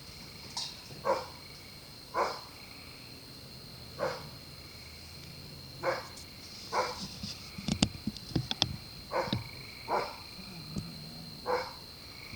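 A dog barking at a distance, single barks every second or two. A steady high insect drone, typical of crickets or katydids, runs under it, and a quick cluster of sharp clicks comes about eight seconds in.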